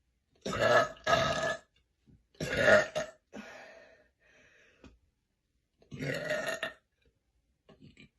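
A woman burping loudly, four times: two in quick succession about half a second in, another at about two and a half seconds, and a longer one around six seconds.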